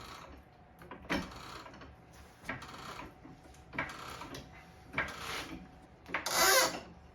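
Hydraulic floor jack being pumped by its handle to lift a car: five evenly spaced strokes of mechanical clanking and creaking, about one every 1.3 seconds, the last one the loudest.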